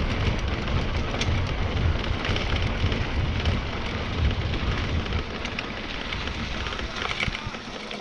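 Wind buffeting a bike-mounted action-camera microphone over the rattle and crunch of mountain-bike tyres rolling fast on a loose-gravel dirt road, with scattered clicks of stones. The rumble eases after about five seconds as the ride reaches smoother dirt.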